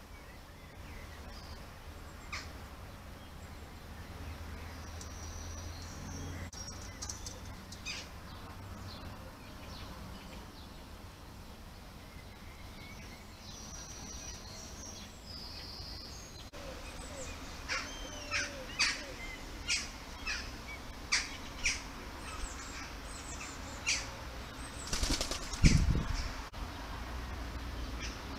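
A bird's wings flapping at a balcony feeder near the end, the loudest sound here, preceded by a run of short, sharp high sounds roughly twice a second.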